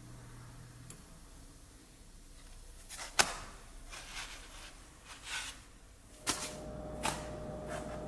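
Fingers handling and turning a flour tortilla in a dry pan: a sharp click about three seconds in, then several soft taps and scrapes. From about six seconds a faint steady hum runs under them.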